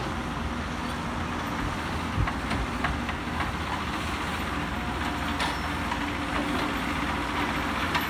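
Diesel engines of a JCB 3CX backhoe loader and a Cat excavator running steadily as the machines move about, with a few sharp knocks now and then, as the excavator climbs out of the pit.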